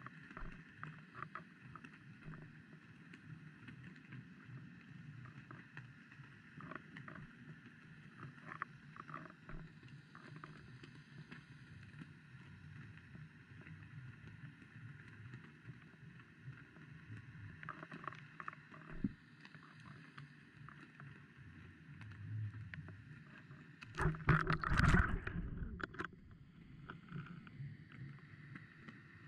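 Muffled underwater water noise as heard by a submerged camera: a steady low wash with scattered faint clicks, and a louder rumbling disturbance lasting about two seconds near the end.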